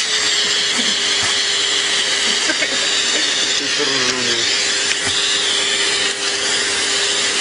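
Vacuum cleaner running steadily: a constant motor whine over rushing air.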